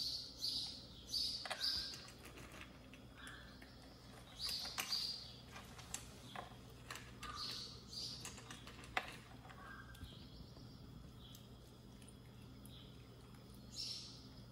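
Short, high-pitched squeaky cries from a young animal, several in quick clusters, with a few sharp ticks in between.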